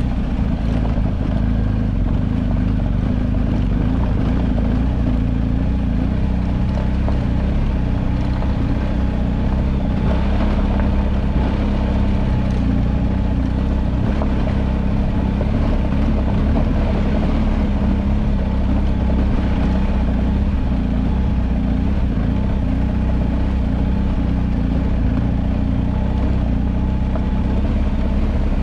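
An engine running steadily at an even speed over a constant rushing noise, typical of riding along on a motor vehicle.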